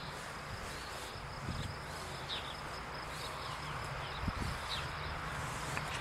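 Outdoor ambience: a steady hiss with a few short, high bird chirps scattered through it, and two soft low thumps.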